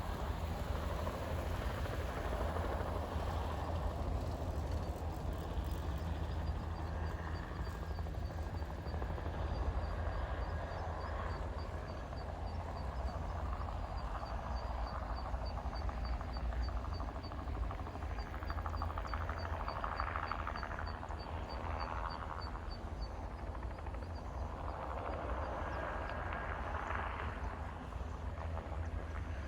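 Crop-spraying helicopter's engine and rotors droning steadily, swelling louder twice in the later part as it passes. A fast, faint, high-pitched ticking runs through the middle.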